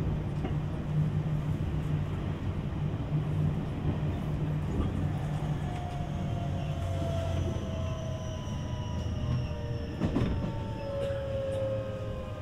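JR West 225-5000 series electric train running, heard inside the car: a steady low rumble of wheels and motors. About halfway through, a whine of several tones sets in from the traction motors and inverter and falls slowly in pitch as the train slows for the next station. There is a brief knock near the end.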